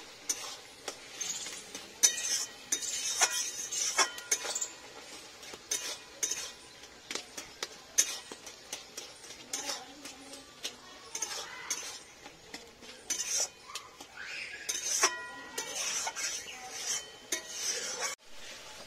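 Long metal spatula stirring and scraping bottle gourd and shrimp curry in a metal kadai: irregular clinks and scrapes against the pan, a few louder strikes leaving the pan briefly ringing.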